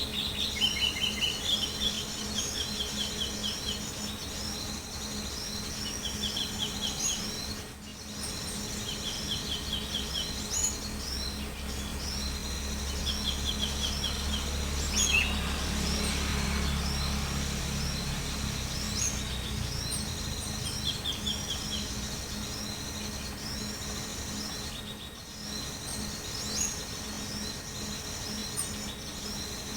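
Many small birds chirping and calling, with quick repeated trilled call phrases coming again and again. A low rumble swells up in the middle and fades away.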